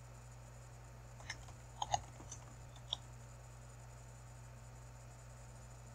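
A few sparse, faint clicks of a computer keyboard and mouse as a search term is typed, clustered between about one and three seconds in, over a steady low hum.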